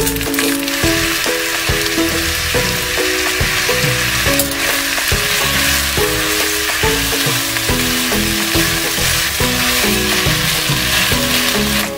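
Rice frying in butter in a skillet, a steady sizzle while a slotted spatula stirs and turns it. Background music plays along.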